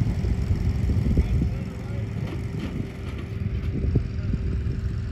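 Distant steady hum from the electric motor and propeller of a 2-metre RC biplane (Plettenberg Advance 30-10 brushless outrunner) in flight, under a heavy low rumble of wind on the microphone.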